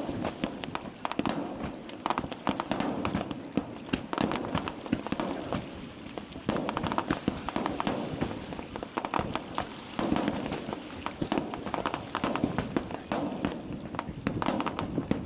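Fireworks crackling: many sharp pops in quick succession, swelling louder in places.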